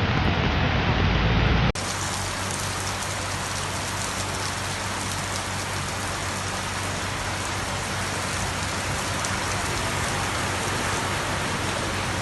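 Heavy rain pouring down steadily during a flash flood, an even hiss. It follows a louder, deeper rushing noise that stops at a sudden cut about two seconds in.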